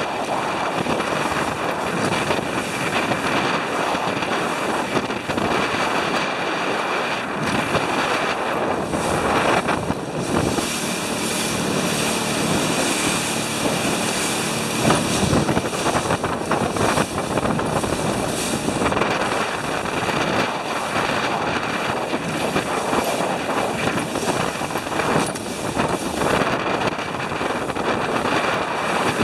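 Small boat underway at half throttle through choppy sea: a Suzuki outboard motor running steadily, mixed with wind rushing over the microphone and water rushing past the hull.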